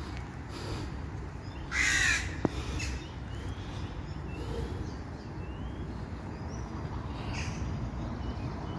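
A crow caws once, loudly, about two seconds in, and gives a fainter call near the end. Small birds chirp faintly in between, over a steady low background rumble.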